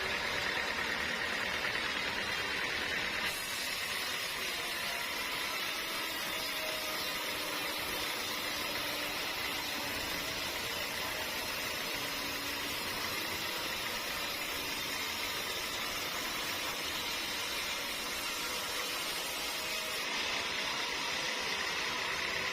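Band sawmill running steadily with a continuous mechanical noise; the sound changes abruptly about three seconds in and again near the end.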